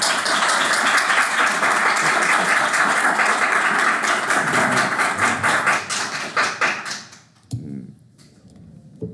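Audience applause: dense clapping that fades out after about seven seconds.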